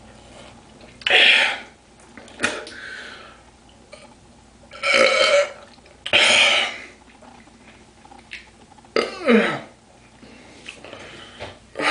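A man belching loudly again and again, about five separate belches a second or more apart, one near the end sliding down in pitch. The belches come from chugging drink during a drinking challenge.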